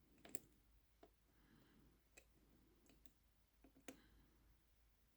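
Faint, irregular clicks of a tensioner and a thin picking wire working inside a small six-lever lock.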